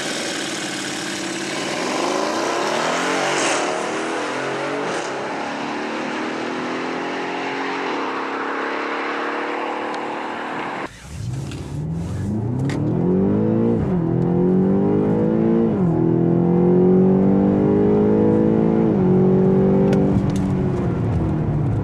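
Mercedes-AMG GLE 63 S and BMW X6 M, twin-turbo V8 performance SUVs, accelerating away hard from a standstill. About halfway through, the BMW X6 M's twin-turbo V8 is heard from inside the cabin under full acceleration: its pitch climbs and drops back at each of several upshifts.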